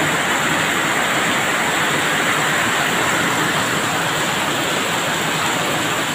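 Heavy rain pouring down in a steady, unbroken hiss, heard from under a corrugated sheet-metal awning.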